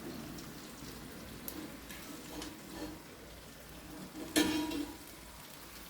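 Chicken sizzling and spitting on the grill rack of a convection microwave oven, paused partway through grilling. A short louder knock comes about four seconds in.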